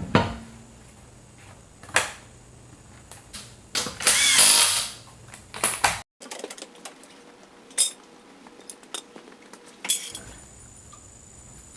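Tool sounds while bolting the front brake caliper back together: scattered metal clicks and knocks, with a loud burst of about a second near the middle.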